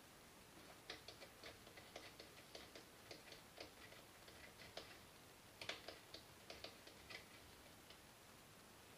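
Faint, irregular small clicks and taps of airsoft gun parts being handled and worked loose during disassembly of an ASG Scorpion EVO, several a second, starting about a second in and stopping near the end.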